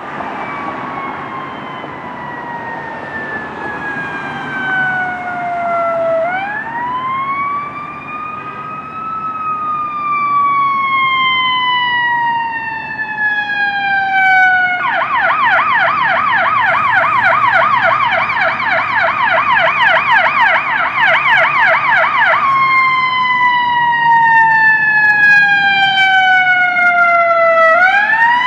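Emergency vehicle siren sounding a slow wail, rising and falling in pitch. About halfway through it switches to a fast yelp for several seconds, then goes back to the slow wail and rises again near the end.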